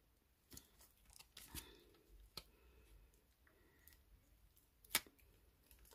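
Faint, sparse handling clicks and one sharp snip about five seconds in: the aqua dragon food packet being opened.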